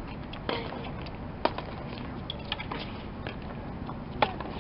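Tennis balls struck by rackets in a doubles rally: sharp pops about half a second in, near a second and a half, and just before the end, with fainter clicks in between.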